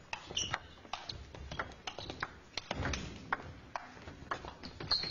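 Table tennis rally: the celluloid ball clicking sharply off rackets and table, several hits a second, with a few short high squeaks.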